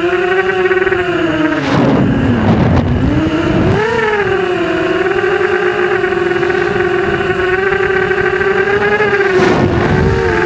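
Electric motors and propellers of a small camera drone whining at a steady pitch. The pitch drops about two seconds in and climbs back about two seconds later, then dips briefly again near the end, with a rush of wind noise at each dip as the throttle is cut and reopened.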